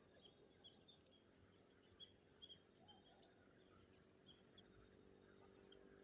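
Near silence: faint outdoor ambience with scattered short, high chirps and a few faint clicks.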